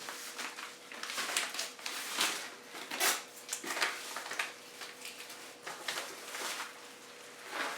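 Bubble-wrap padded envelope being handled and opened: irregular rustling and crinkling of plastic and paper.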